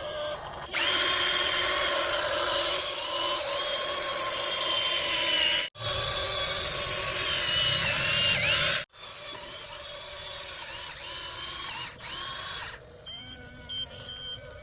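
Small electric motor whirring with a steady high whine, in three stretches separated by sudden breaks about a third and two thirds of the way in; the last stretch is quieter.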